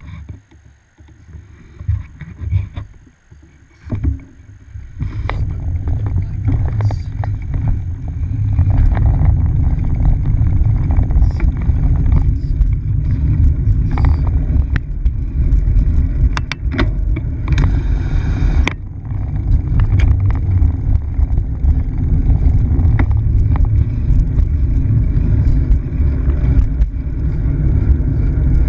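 Wind rumbling over a handlebar-mounted action camera's microphone as a bicycle rides along, with scattered clicks and knocks from the mount over bumps. It starts quieter, with a few knocks, and builds to a steady rumble about five seconds in as the bike picks up speed.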